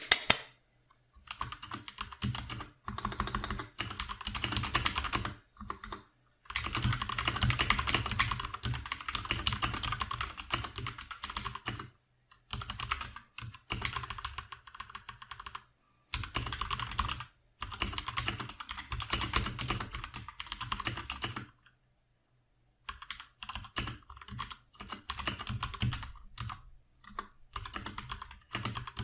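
Typing on an RK61 60% hotswap mechanical keyboard with stock Gateron Red linear switches and stock stabilizers, which the reviewer calls rattly. The keys clatter in fast runs of several seconds, with short pauses between runs and a longer pause about three-quarters of the way through.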